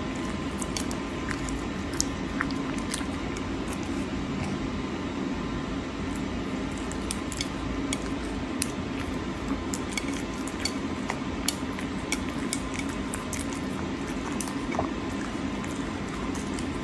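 Caracal eating raw salmon chunks off a plate: wet, squishy chewing and smacking with many short scattered clicks, over a steady low hum.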